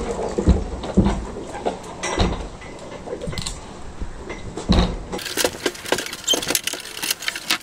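A horse's hooves knocking and shifting on the floor of a horsebox. From about five seconds in comes a clatter of metal clinks and rattles as the horsebox partition is swung across and latched.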